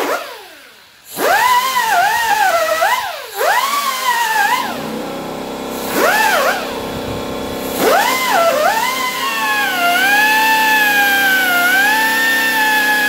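Pneumatic die grinder with a small abrasive disc whining against rusty cab floor sheet metal, its pitch sagging and rising as it is pressed in and eased off. It is cleaning paint and rust off to expose the spot welds. It stops briefly about a second in, then runs again and holds a nearly steady whine over the last few seconds.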